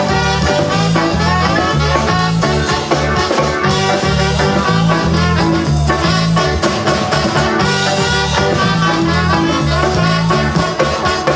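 Live band playing an instrumental passage in a Latin dance style: two saxophones and a trumpet carrying the melody, with acoustic guitar, over a steady rhythm and a bass line that moves in even steps.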